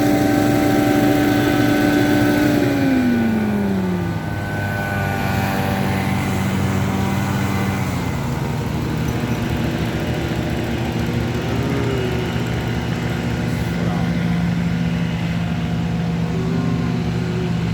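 An engine running steadily, then slowing about three seconds in, its pitch gliding down and settling lower, with a further small drop near the middle.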